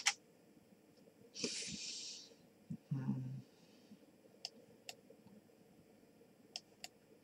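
A person breathes out sharply through the nose about one and a half seconds in, then gives a short low hum around three seconds. A few faint mouse clicks sound scattered through the rest.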